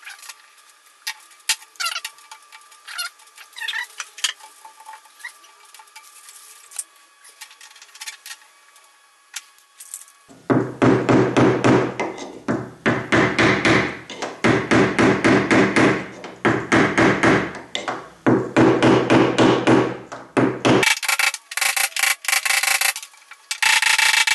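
A plastic bridge dent lifter being worked on a pull tab glued to a car door panel. For the first ten seconds there are only faint scattered clicks. After that come loud bursts of rapid creaking, rasping clicks, each a second or two long with short pauses between them, and near the end a run of sharper, higher clicks.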